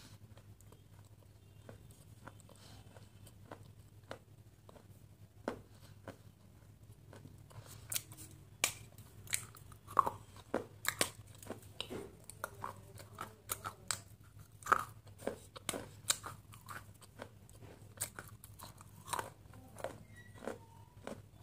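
Close-up mouth sounds of biting and chewing a water-soaked crunchy material. It is mostly quiet at first, then from about seven seconds in come many sharp, irregular crunches and clicks.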